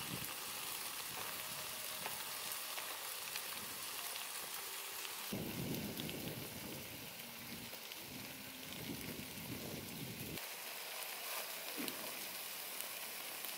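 Spicy stir-fry of instant noodles, seafood, pork intestines and kimchi sizzling and crackling in an oiled foil tray. The sizzle changes character abruptly about five and ten seconds in.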